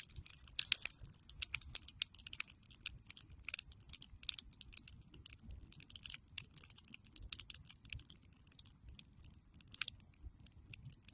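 Wood campfire crackling, with quick irregular pops and snaps over a faint low rumble.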